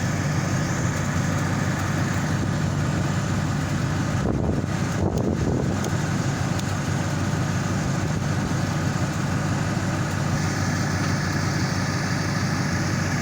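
Car engine running steadily at idle.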